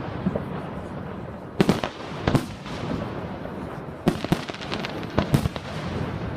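Fireworks display: aerial shells bursting in a series of sharp bangs, often in pairs, with crackling between them.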